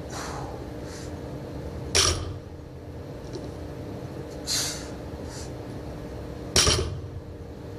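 A loaded 240 lb barbell knocks down on the rubber floor mat twice, about four and a half seconds apart, as it touches the floor between deadlift reps. Short, sharp breaths from the lifter come between the knocks, over a steady low hum.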